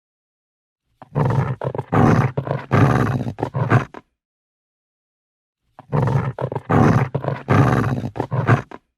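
Angry, agitated dog growling in two bouts of about three seconds each, each made of several rough growls, with dead silence between them.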